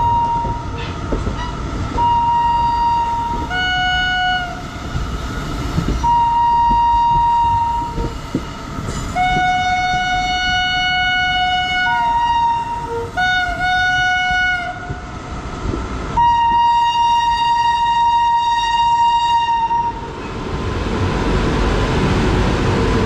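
Indian Railways locomotive horns blowing in repeated blasts: a single-pitched horn and a lower, fuller chord horn take turns. There are blasts of one to three seconds, two short chord toots around 13 to 14 s, and a single-pitched blast held about four seconds. Near the end the horns stop and the rumble of a passing train's wheels on the rails takes over.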